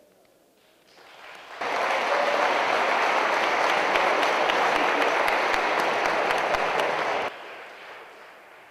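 Audience applauding, building quickly about a second and a half in, holding steady, then dropping off sharply near the end and fading out.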